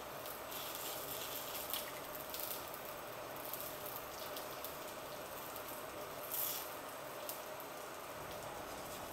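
Liquid poured off a metal spoon into a glass measuring jug, with a few light clicks of the spoon and bottle against the glass over a steady soft hiss.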